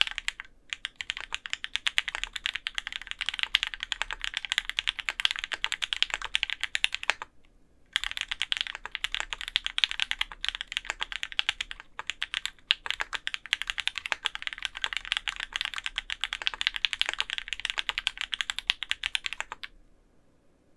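Rapid typing on an Orion v2.5 custom mechanical keyboard with a top-mounted aluminium plate, hand-lubed Opblack switches and GMK keycaps: a fast, dense run of keystrokes, with a brief pause about seven seconds in, and it stops about a second before the end.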